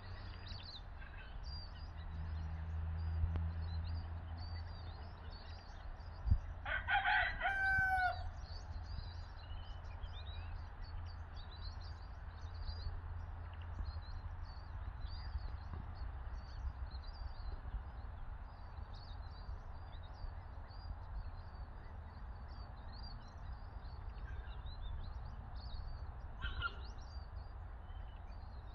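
French Black Copper Maran rooster crowing once, loudly, about seven seconds in, with a shorter, fainter call near the end. Small wild birds chirp throughout.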